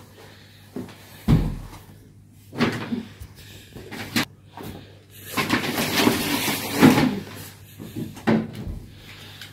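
Broom sweeping a wooden parquet floor: scraping strokes of the bristles with several knocks and bumps, the loudest a thump about a second in, and a longer stretch of sweeping between about five and seven seconds in.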